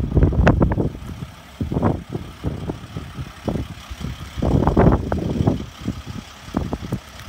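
Wind buffeting the microphone in uneven gusts, a low rumbling noise that swells and drops every second or so, strongest about half a second in and around four to five seconds in.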